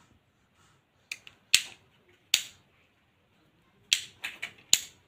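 Sharp plastic clicks from a white one-gang light switch being handled and turned over in the hands: a few spaced clicks, then a quicker cluster of four near the end.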